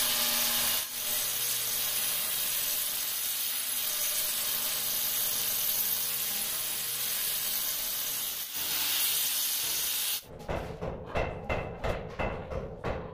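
Angle grinder cutting through a granite countertop slab: a steady, high, hissing grind that dips briefly twice and stops about ten seconds in. Rhythmic background music with a beat follows.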